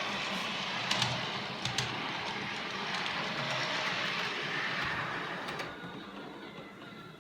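OO gauge model train running along the track: a steady rolling rumble with a few sharp clicks, fading away about five and a half seconds in.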